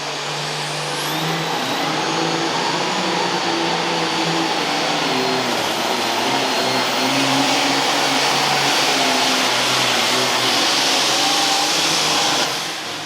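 Turbocharged diesel Super Farm pulling tractor running at full throttle on a pull. The engine climbs about a second in, holds a heavy steady roar, then drops sharply near the end as the run finishes.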